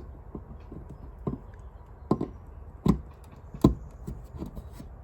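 Irregular sharp clicks and knocks from handling the portable Level 2 EV charger and its plug and cable at the wall outlet, several strikes spaced about half a second to a second apart.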